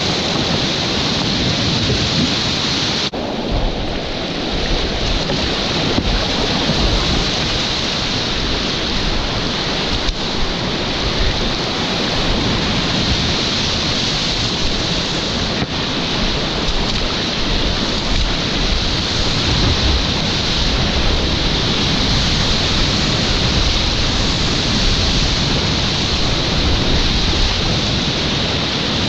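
Whitewater rapids heard from inside a kayak at water level: a loud, steady rush of churning water, with a brief dip about three seconds in.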